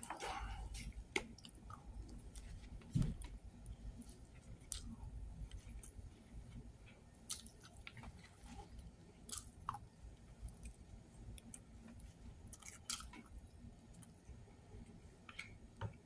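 A person chewing food, with scattered light clicks of a plastic fork and utensils against the plate and a soft thump about three seconds in.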